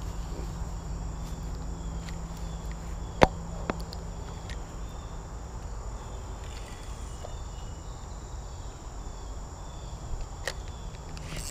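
Insects trilling steadily, with a sharp click about three seconds in, a smaller one just after, and another near the end.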